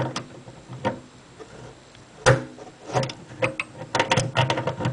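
Basin wrench working the supply-line nut under a kitchen faucet, giving sharp metal clicks and knocks: a few single ones early on, then a quick run of them near the end.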